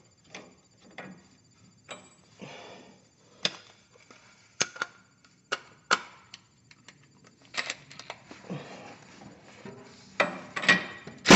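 Scattered metallic clicks and taps of a socket, extension and tools being handled on the rear differential's pinion nut and yoke, with a few louder knocks near the end.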